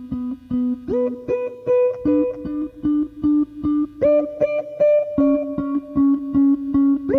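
Background music on plucked guitar: short notes repeated at a steady pulse of about four a second, with a higher note sliding up into place every few seconds.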